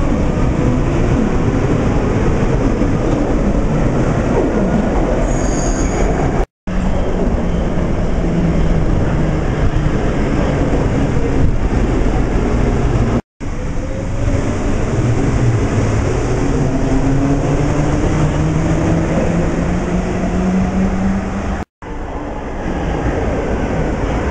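Munich U-Bahn trains running through an underground station. The motor whine rises steadily in pitch as a train picks up speed, over dense wheel-and-rail rumble, and the sound drops out briefly three times.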